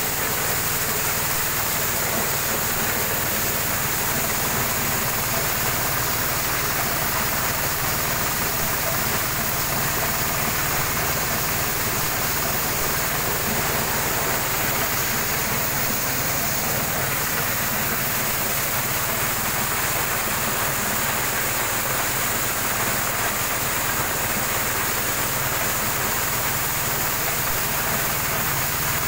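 Engine-driven corn sheller at work: its small engine runs steadily under load, under a constant rushing noise of cobs being shelled and kernels pouring out.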